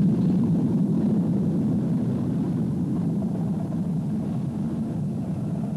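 Diesel-electric multiple unit running along the line, a steady low engine and wheel rumble that fades gradually as the train draws away.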